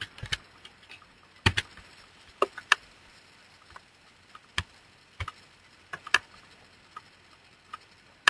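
Computer keyboard and mouse clicking: a few quick key presses at the start, then single sharp clicks spaced irregularly, roughly a second apart.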